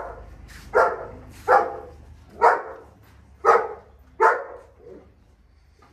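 A dog barking in short, separate barks, about six of them at roughly one a second, the last one faint about five seconds in.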